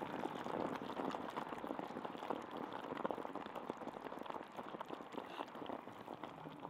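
Self-heating rice cake meal boiling inside its covered plastic container, a dense, fast bubbling crackle: the flameless heater pack has reacted with the added water. It eases a little near the end.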